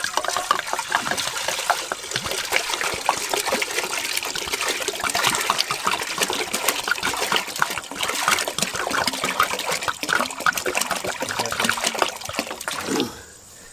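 Water pouring in a steady stream from a large plastic water can into an aluminium cooking pot, splashing as the pot fills. The pour stops just before the end.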